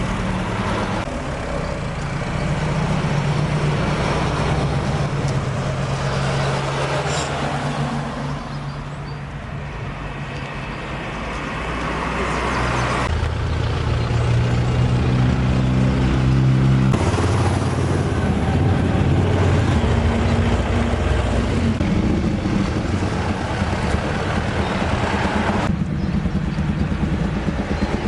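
Car engines running at low speed, with a steady low engine note that changes abruptly twice around the middle.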